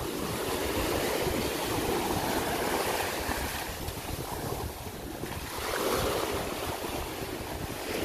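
Sea waves washing in and breaking at the shoreline, the wash swelling and easing twice, with wind buffeting the microphone.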